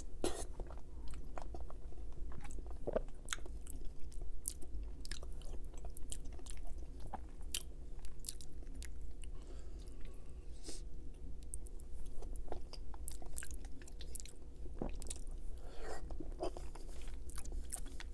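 Close-miked chewing of a mouthful of lasagna, with many short wet mouth clicks and smacks scattered throughout.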